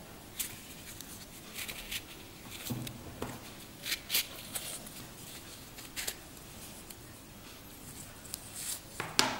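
Grey canvas watch strap with a steel buckle being handled and flexed in the hands: soft, scattered rustles, scrapes and light clicks, the sharpest one near the end.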